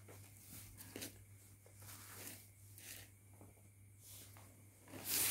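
Faint rustling of silk saree fabric being handled and shifted, with a louder rustle about five seconds in, over a low steady hum.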